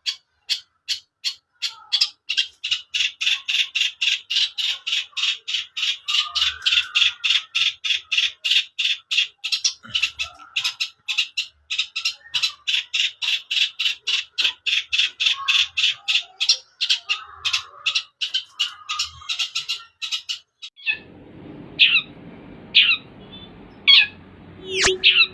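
Long-tailed shrike (cendet) giving a fast, even series of harsh, scratchy calls, about four a second, for some twenty seconds. Near the end it switches to separate, sharper sweeping calls about once a second, over a steady background hiss.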